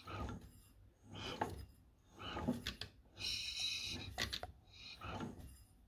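Faint, intermittent clicks and scrapes of a hand tool and metal parts being handled on a small four-stroke engine's exposed valve gear and cylinder head.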